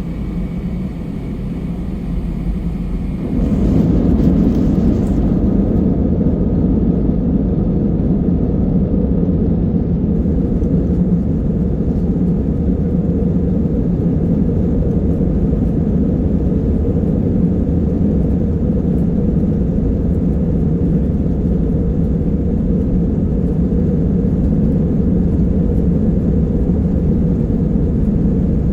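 Airbus A320 cabin noise: a steady engine hum that steps up about three seconds in to a loud, even engine rumble, as the engines come up to high thrust for takeoff.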